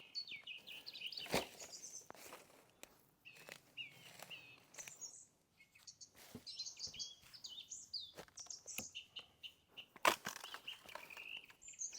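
Rainforest birds chirping and warbling continuously, with several sharp clicks or snaps mixed in, the loudest about ten seconds in.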